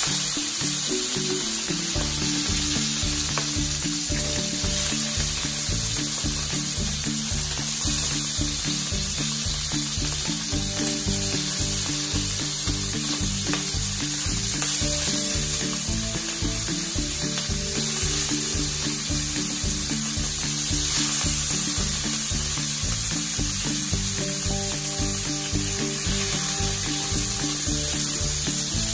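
Small whole sardines sizzling steadily as they fry in hot oil in a frying pan, with more fish laid in partway through. Background music with a steady beat plays underneath.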